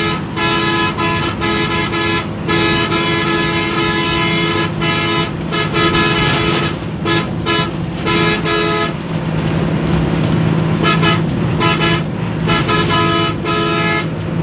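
A loud bus horn honking in quick repeated blasts for about nine seconds, pausing briefly, then another run of short blasts, over the steady running of a bus engine.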